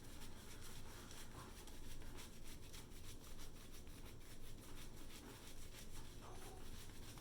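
Shaving brush swishing lather, a soft scratchy rubbing in fast repeated strokes, several a second.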